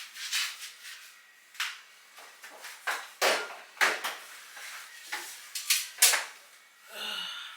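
A string of irregular sharp clicks and knocks, like objects being handled and set down, with the loudest knocks in the middle of the stretch.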